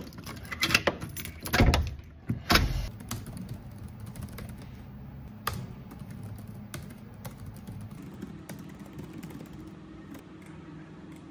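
A key rattling and clicking in a door's knob lock for the first couple of seconds, then quick, soft key clicks of typing on a laptop keyboard.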